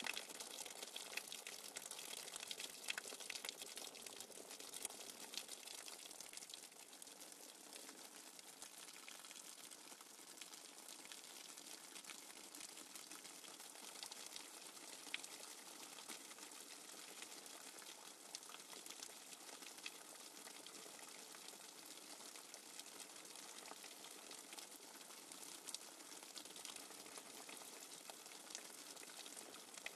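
Faint, steady nature-sound recording of running water, an even rush dotted with fine crackles.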